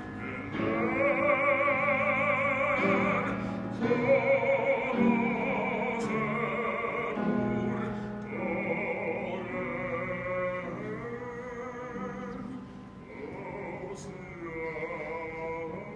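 Choir singing in long held phrases with vibrato, each phrase breaking off and a new one starting every few seconds.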